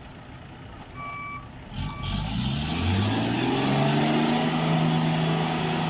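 Two short high beeps, then a heavy truck's engine revving up and holding at high revs as trucks pull a bogged-down truck out of mud.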